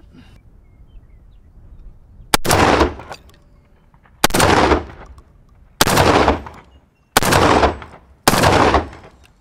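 Five shots from a GForce Arms GF12AR 12-gauge semi-automatic AR-style shotgun firing 2-shot steel waterfowl loads, the action cycling cleanly between them. The shots come about one to two seconds apart, each followed by a short echo.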